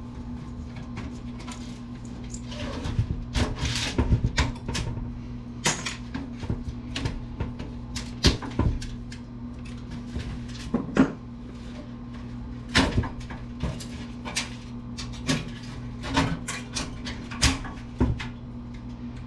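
Scattered clicks and knocks of plastic and metal parts being handled inside a desktop computer case as it is taken apart for scrap, over a steady low hum.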